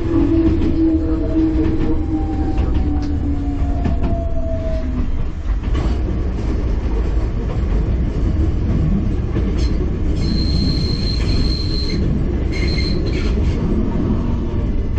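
Enoshima Electric Railway train running with a steady low rumble of wheels on track. A hum falls slowly in pitch over the first five seconds. A high-pitched wheel squeal rings for about two seconds around ten seconds in and again briefly a moment later.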